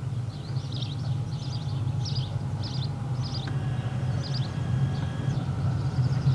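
Short high-pitched chirps from a small animal, repeated roughly every half second, over a steady low hum.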